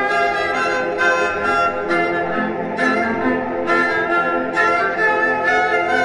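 Background instrumental music carried by bowed strings, with sustained notes changing every half-second to a second at an even, steady level.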